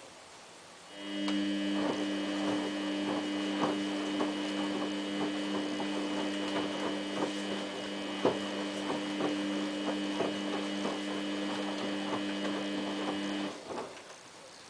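Samsung WF8804RPA washing machine's motor turning the drum through a wash tumble: a steady hum that starts about a second in and stops shortly before the end, with irregular light ticks and knocks from the wet load as it turns.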